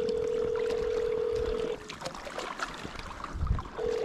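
Phone ringback tone heard over a speakerphone: a steady mid-pitched beep of about two seconds, a pause of about two seconds, then the next beep near the end. Faint water and kayak noise lies underneath, with a low knock about three and a half seconds in.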